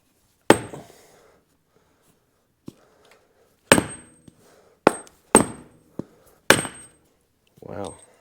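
Five hammer blows on the castle nut threaded onto the end of a Polaris Ranger 800 CV axle, driving the axle in against its stubborn retaining spring clip. The first comes alone about half a second in, the other four in quicker succession from about 3.7 s, each with a brief high metallic ring.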